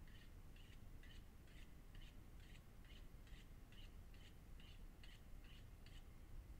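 A bird calling repeatedly in the distance: a faint, short, harsh note about twice a second, stopping shortly before the end.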